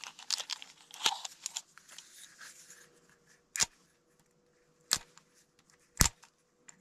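Orange plastic waterproof match case being unscrewed and handled with small clicks and rustles, then three short, sharp scratches about a second apart as a safety match is struck on the case's striker.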